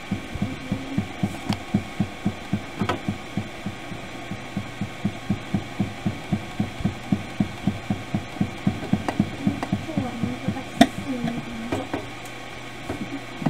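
Coloured pencil scribbling back and forth on notebook paper over a wooden table, in rhythmic strokes about four a second, with one sharper tap near the end as the strokes stop.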